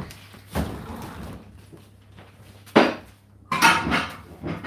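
Household knocks and clatter: a sharp knock near the middle, then a longer rattling clatter, over a steady low hum.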